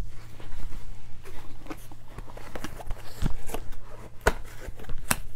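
Cardboard kit box being picked up and handled: irregular light taps, knocks and rustling of cardboard and paper, with a few sharper knocks about three, four and five seconds in.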